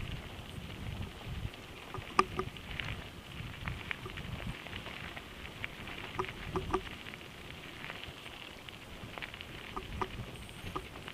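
Mountain bike rolling downhill on a loose gravel road: tyres crunching over stones, with sharp clicks and rattles from the bike over bumps, loudest about two seconds in and again around six and a half seconds.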